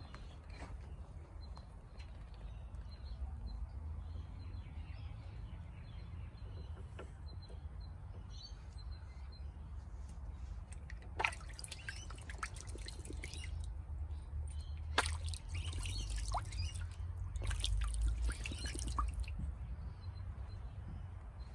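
Water splashing and dripping in a small plastic pond as a Muscovy duckling swims and dabbles, with scattered splashes that turn frequent and busy about halfway through. A steady low rumble runs underneath.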